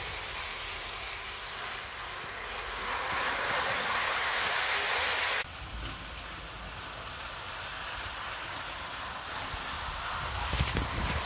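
Hornby OO gauge live steam Flying Scotsman model locomotive running on garden track: a steady hiss over a low wind rumble. The hiss swells for a few seconds and then cuts off abruptly about five seconds in. Near the end comes a run of sharp clicks as the locomotive passes close.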